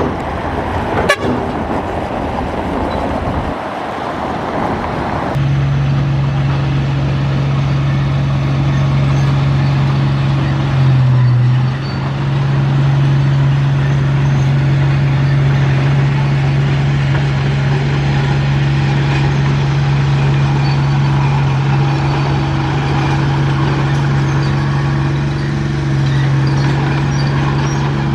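Diesel engine of a Komatsu D31P crawler bulldozer running with a steady deep drone. It sets in abruptly about five seconds in, after rougher machine noise and a sharp click.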